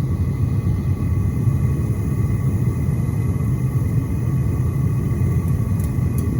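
Propane-fired metal-melting furnace burner running steadily: a dense, even low rumble of burning gas as the furnace heats a crucible of brass.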